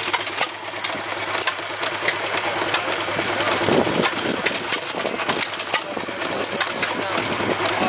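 Antique single-cylinder hit-and-miss gas engine running, with rapid mechanical clicking and an occasional louder firing stroke between coasting revolutions.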